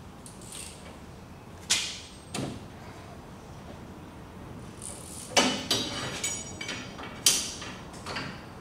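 Metal clinks and knocks as a bar is worked against a differential side bearing adjuster to turn it: two separate knocks about two seconds in, then a quick run of clinks, some with a short ringing tone, in the second half.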